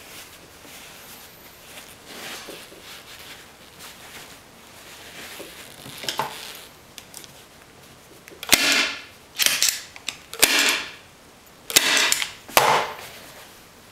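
Staple gun firing staples through upholstery fabric into the seat cushion's wooden base: five sharp shots about a second apart in the second half, after quieter rustling of fabric being pulled tight.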